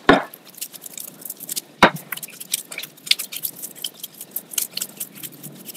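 Hands kneading glutinous rice dough in a ceramic bowl, pressing it against the bowl: a quick run of small sticky crackles and taps. There are a few heavier knocks, near the start and about two seconds in.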